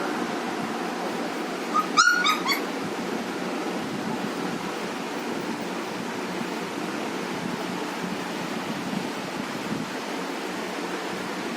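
Puppy giving a quick run of four or five short, high-pitched yips about two seconds in, over steady background noise.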